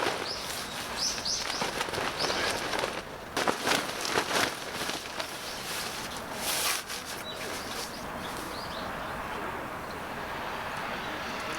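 Small birds chirping in short, high, falling notes, mostly in the first couple of seconds, over a steady outdoor hiss. Irregular clicks and knocks come through the first half, loudest around the middle.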